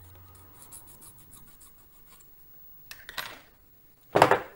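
Quiet handling of a thin etched brass sheet, with a brief soft scrape of a small metal tool across the brass about three seconds in. A short burst of voice follows near the end.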